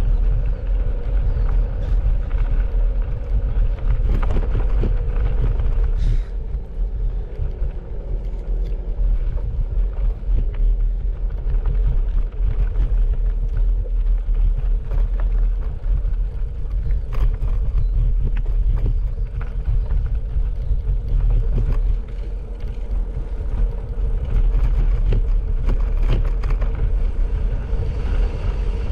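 Steady low rumble of wind buffeting the microphone on a moving bicycle, mixed with tyre noise on a gravel track, easing briefly twice.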